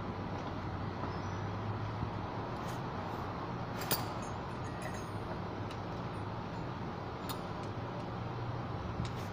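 Metal hand tools clinking a few times, the sharpest about four seconds in, over a steady low hum.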